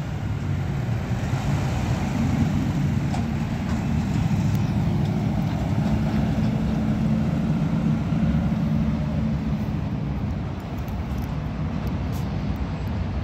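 Peterbilt 520 front-loader garbage truck's engine as the truck pulls onto the street and drives away, a steady low hum that eases off after about ten seconds as it gets farther off.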